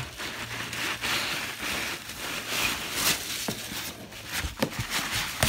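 Foam packing peanuts rustling and shifting as a hand digs through them in a cardboard box, with a few sharp clicks and knocks.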